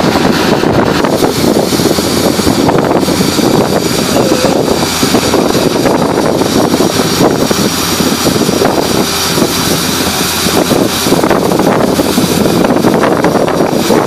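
Tracked down-the-hole drilling rig and its portable air compressor running loudly and steadily.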